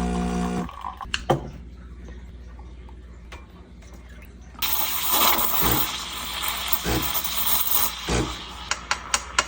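Background music cuts off, then a few clicks. About four and a half seconds in, a coffee machine starts a loud rushing hiss of liquid with a few low thumps, which ends near the end.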